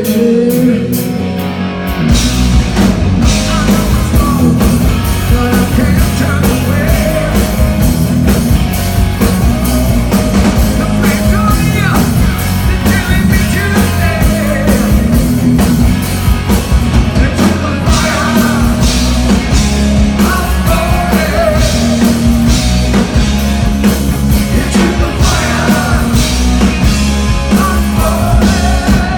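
Live hard rock band playing loud: distorted electric guitars, bass and drums with a steady beat, and a singer over them. The full band comes in about two seconds in, after a lighter opening.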